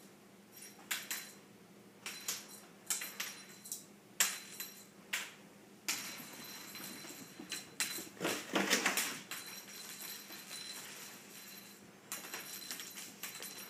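Kittens playing on a hardwood floor: an irregular run of sharp taps and clinks, with a louder scrambling scuffle about eight to nine seconds in.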